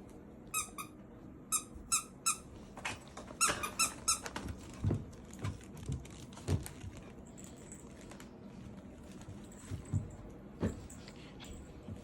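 A series of short, high squeaks, mostly in quick pairs, over the first four seconds or so, followed by a few soft thumps.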